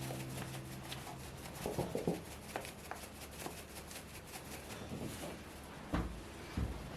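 Faint handling sounds: light taps, clicks and rubbing of small objects, with two soft thumps about six seconds in. A guitar chord is dying away at the start.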